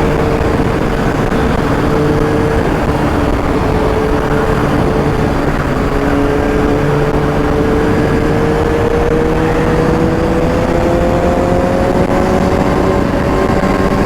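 Kawasaki ZX-6R inline-four engine running at road speed, its pitch climbing gradually through the second half as the bike accelerates. A steady rush of wind noise comes in on the helmet microphone, which has a dead-cat wind muff fitted and an open visor.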